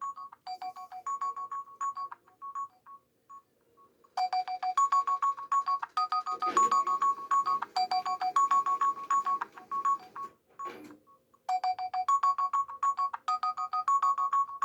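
Android phone tone from a Multilaser E playing through its small speaker: a fast melody of short bright electronic notes. It is quieter at first, turns louder about four seconds in, and breaks off briefly before repeating near the end.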